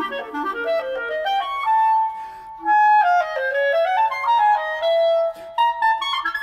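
Clarinet playing fast, scale-like runs that climb, then holding one note for about a second. It winds down through quick figures and rises again to a long high note near the end.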